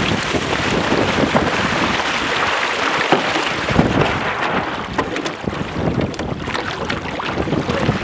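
Wind buffeting the microphone over water rushing and splashing along the hulls of a Weta trimaran under sail, with a few scattered knocks and clicks through the middle.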